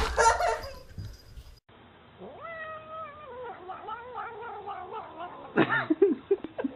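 A brief loud clatter, then a domestic tabby cat yowling: a long drawn-out call that wavers in pitch, with a louder, sharper cry about five and a half seconds in.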